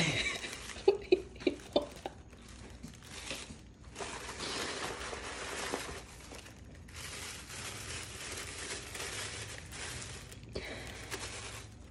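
Tissue paper rustling and crinkling as it is pulled out of a gift bag and handled, in long stretches of crackly noise.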